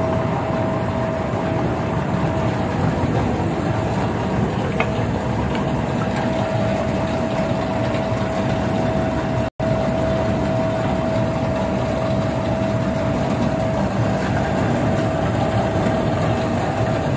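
Non-woven fabric roll-cutting machine running: a steady mechanical hum with a steady mid-pitched whine, broken by a split-second gap about halfway through.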